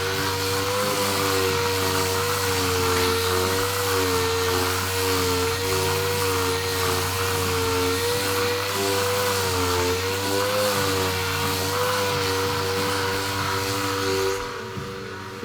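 A power tool running steadily with a slightly wavering whine over a loud hiss. Most of the hiss stops near the end.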